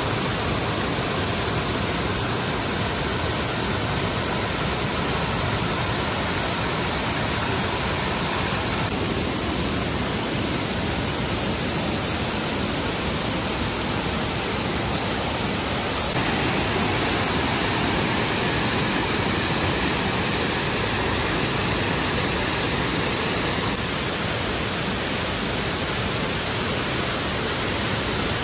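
Steady, loud hiss of even noise with no speech; its tone shifts slightly a few times.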